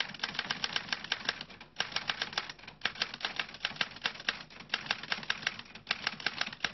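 Typewriter keys struck in quick succession as a sentence is typed, about five or six clacks a second, with a few brief pauses.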